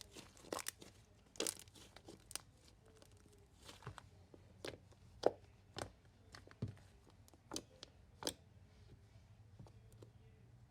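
Marshmallow slime made of shaving cream being stretched and squished by hand, giving off irregular sticky pops and crackles that thin out near the end.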